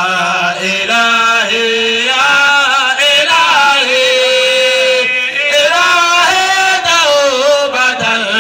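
A man chanting an Arabic devotional praise poem unaccompanied, drawing each syllable out into long, ornamented notes that slide and waver in pitch.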